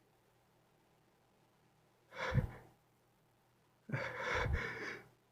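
A person's breathing as a sneeze builds: about two seconds in a short, sharp breath, then from about four to five seconds a longer, shaky gasping breath.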